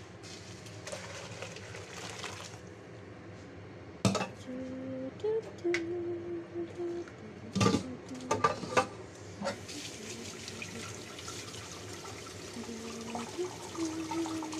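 Stainless steel pot knocking and clanking against a stainless colander in a sink, then hot blanching water pouring steadily through the colander and draining away as the cauliflower is tipped out.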